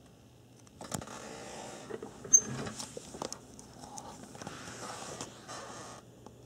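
Rustling and handling noise with scattered clicks and knocks as the camera is carried across the room, over a faint steady low hum.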